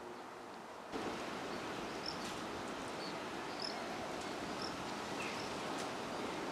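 Steady outdoor background noise that gets louder suddenly about a second in, with a few short, high bird chirps scattered through it. No thunder is heard.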